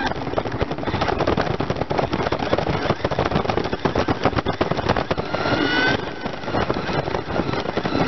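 Onboard sound of a remote-control car driving: a dense, constant rattle and rumble as it runs over the ramp and road, with a motor whine rising in pitch about five seconds in that breaks off suddenly a second later.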